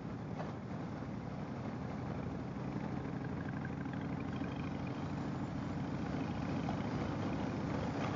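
Harley-Davidson motorcycle's V-twin engine running steadily on the road, a low steady hum that grows slightly louder after the first couple of seconds.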